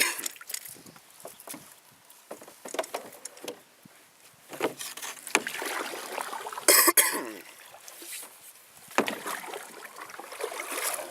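Water splashing and knocking around a small fishing boat, in several irregular bursts, the loudest about seven seconds in.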